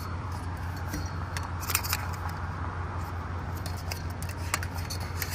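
Light clicks and metallic clinks of a Helinox cot's aluminium poles being handled and slid out of the fabric, a few sharper clicks among them, over a steady low hum.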